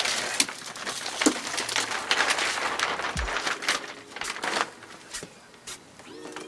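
Plastic potting-mix bag crinkling and rustling as handfuls of soil are scooped out of it and dropped into a planter, with irregular crisp crackles throughout.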